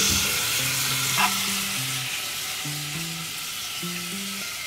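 Meat-wrapped rolls sizzling in a frying pan as they are turned with chopsticks, a steady frying hiss. Light background music plays a simple note-by-note melody underneath.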